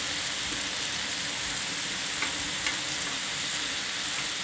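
Thin slices of roast beef sizzling steadily as they sear on a hot griddle plate, with a few faint clicks of metal tongs turning them.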